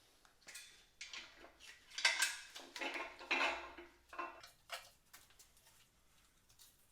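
Metal hand tools and engine parts clinking and scraping against each other as an engine is taken apart, a busy run of clatter for the first few seconds that then thins to occasional small clicks.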